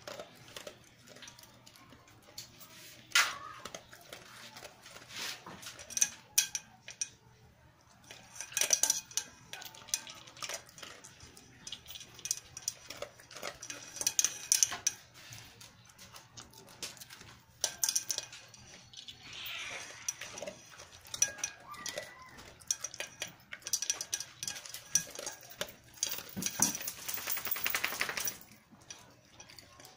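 A dog eating dry kibble from a metal pail: crunchy chewing, with the kibble and its muzzle clinking and knocking against the metal again and again.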